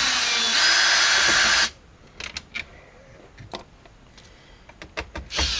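Cordless power drill-driver spinning out a head-unit bolt for about a second and a half with a steady whine, then stopping. Scattered light clicks and taps follow, and the drill starts up again near the end.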